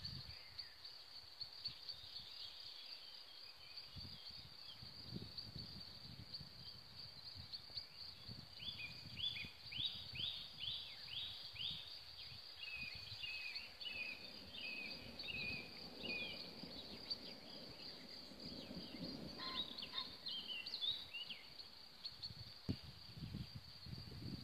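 Countryside ambience: crickets trill steadily and high-pitched throughout. A songbird sings a fast series of short repeated chirps in the middle and again briefly near the end.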